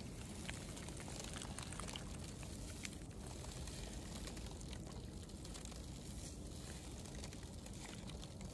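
Water lapping faintly at the edge of thin new shore ice, with many small scattered ticks and crackles, over a low steady rumble.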